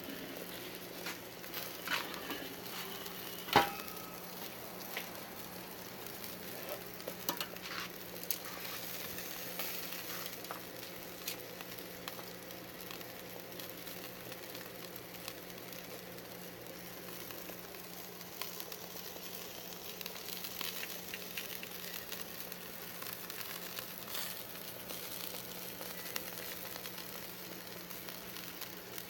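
Meat sizzling on a barbecue grill: a steady hiss with a low hum underneath. Scattered sharp clicks and knocks, the loudest about three and a half seconds in and a cluster between seven and eleven seconds.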